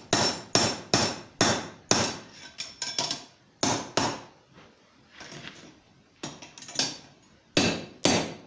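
A blacksmith's hammer striking steel on the anvil, about two ringing blows a second, driving a rod into a hairpin bend to set a tight notch. The blows pause in the middle for a few lighter taps, then resume near the end.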